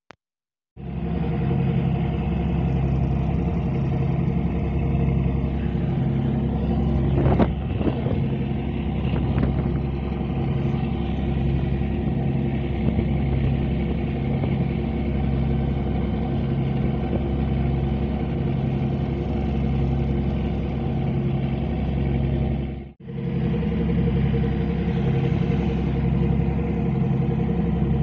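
Ship's engines droning steadily, heard on board a RoRo ferry, with a low, even throb. The sound drops out briefly once, near the end.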